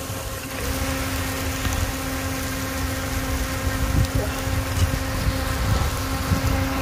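Steady machine hum with a constant tone over a low rumble, with a few faint clicks about four to five seconds in.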